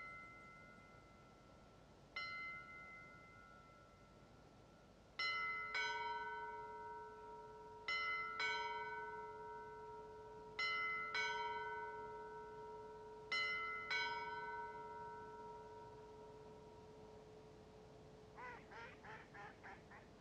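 Church bells ringing. A single bell strikes twice, then two bells of different pitch sound in pairs, four pairs evenly spaced, each stroke left to ring on and fade. Near the end there is a brief rapid run of about six chattering notes.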